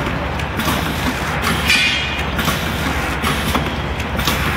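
Automatic vertical liquid sachet packing machine running: a steady mechanical hum with a knock about once a second as it cycles through each pouch, and a short squeak just under two seconds in.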